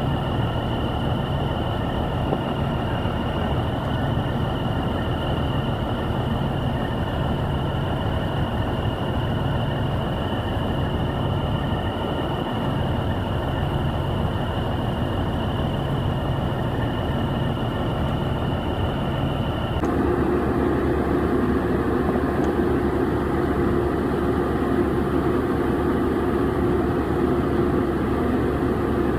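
Combine harvester running while it unloads grain through its auger spout into a grain trailer: a steady machine noise with a high whine over it. About two-thirds of the way in the sound changes abruptly to a louder, lower running noise without the whine.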